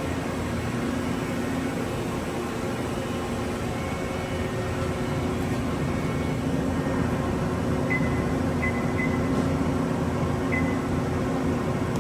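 Steady machinery hum with several low steady tones running through it, and a few short high-pitched chirps in the second half.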